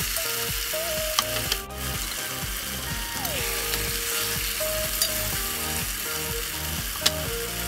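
Chicken and tomatoes sizzling steadily in a pot while a metal spoon stirs them, scraping and clicking against the pot a few times. Background music with a steady beat runs underneath.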